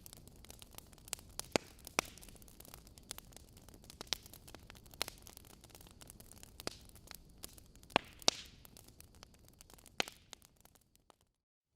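Logs burning in a fireplace, crackling with irregular sharp pops over a faint steady hiss, and a brief hissing swell about eight seconds in. The sound cuts out completely for about a second near the end.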